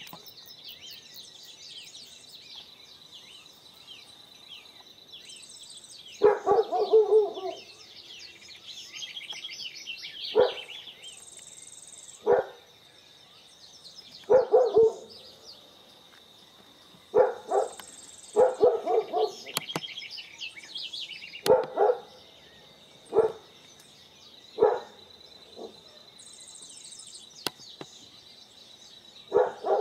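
Outdoor dawn birdsong: high chirps and trills with a thin steady high tone behind them, and loud, low calls coming in short bursts every second or two from about six seconds in.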